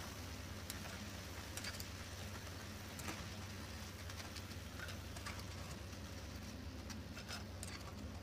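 Potato sticks deep-frying in hot oil: a steady sizzle with scattered crackles and pops.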